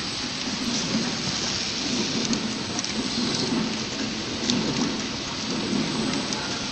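Horizontal flow-wrap packing machine running without product, making steady mechanical noise with scattered light ticks as it feeds film and seals and cuts empty bags.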